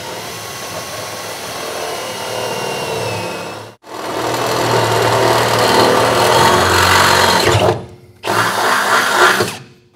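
Half-inch electric drill boring half-inch holes up through a pickup truck's bed floor from underneath. It runs in three spells with short stops between them; the middle spell, starting about four seconds in, is the loudest.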